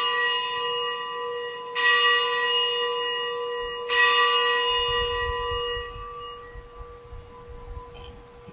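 A bell struck twice, about two seconds apart, each stroke ringing out and slowly fading, over the ringing of a stroke just before. It is the bell rung at the elevation of the consecrated host, right after the words of consecration at Mass.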